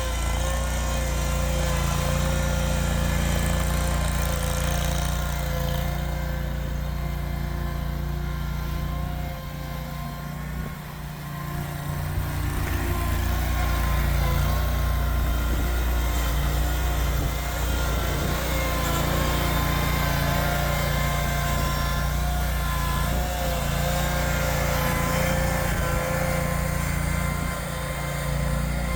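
Ventrac compact tractor engine running steadily under load while clearing snow, with a steady whine above it. The level drops briefly about ten seconds in and again near the end.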